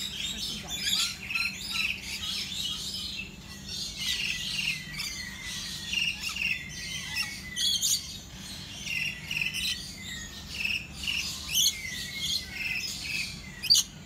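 Many birds chirping and twittering together, a dense run of short, repeated high chirps throughout.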